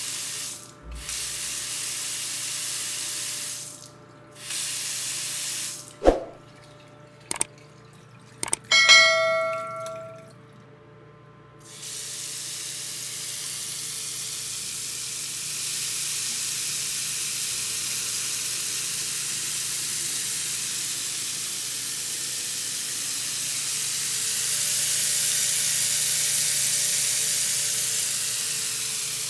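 Short bursts of hissing spray, two sharp knocks, and a brief bright ringing tone. Then a long steady rush of running water that grows slightly louder toward the end.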